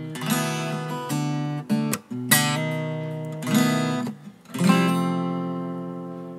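Cutaway steel-string acoustic guitar strummed in a few closing chords of a song; the last chord, struck near the end, is left to ring and slowly fade.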